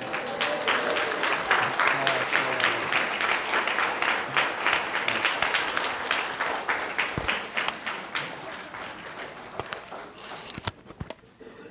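Audience applauding, a dense run of clapping that thins out and dies away over the last couple of seconds.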